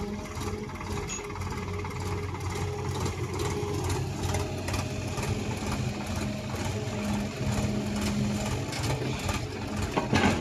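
XCMG XF140C hydraulic excavator's diesel engine running steadily under load as the machine digs, swings and dumps a bucket of soil. A short knock near the end.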